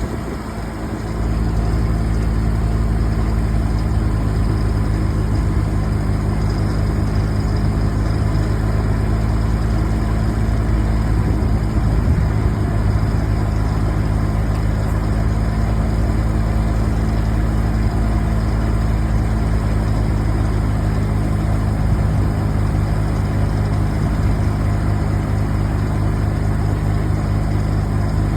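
A large engine running steadily at an even, low pitch, louder from about a second in.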